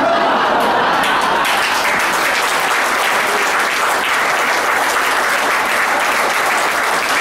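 A roomful of people applauding; the clapping breaks out suddenly and holds steady.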